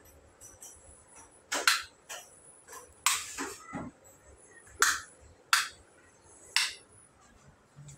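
Plastic rocker wall switches being flipped by hand: a series of sharp clicks, about seven, spread unevenly over several seconds.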